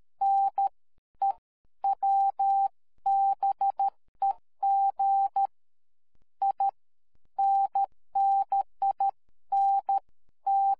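Morse code sent as a single steady beeping tone, keyed in short and long beeps grouped into letters, with a pause of about a second a little past the middle.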